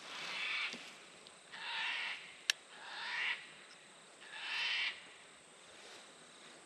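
Fox whistle blown in four short rips, each about half a second long, imitating a distressed rabbit to draw a fox in. A single sharp click sounds about midway through.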